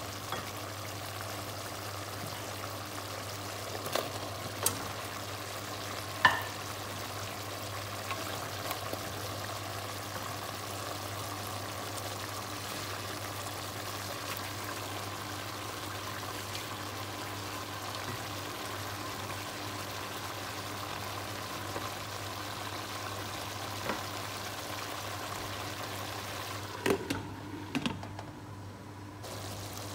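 Chicken adobo in coconut milk simmering in a pot, with a steady sizzling hiss. A few sharp knocks against the pot in the first several seconds, and a short clatter near the end as a glass lid is set on the pot.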